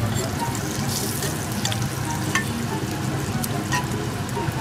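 Bacon slices sizzling in hot fat in a frying pan: a steady hiss with scattered sharp pops and crackles.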